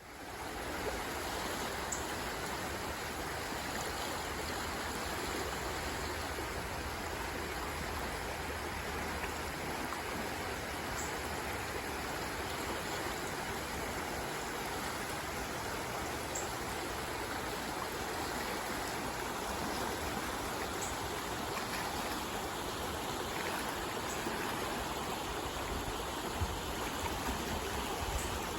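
Creek water flowing, a steady rushing that fades in at the very start.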